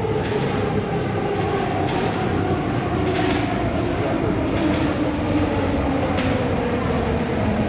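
Métro train coming into the station: a steady rolling rumble with a whine that slowly falls in pitch as it slows.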